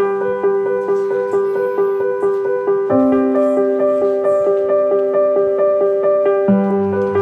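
Background music: a piano or keyboard playing a steady run of evenly repeated notes, about three a second, over a held bass note that shifts about three seconds in and again near the end.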